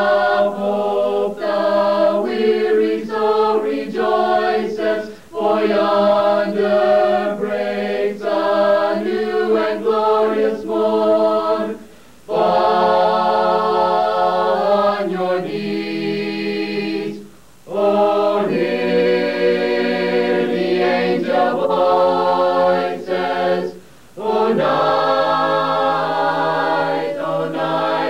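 Mixed-voice a cappella choir singing unaccompanied, holding sustained chords in phrases, with a few brief breaks between phrases.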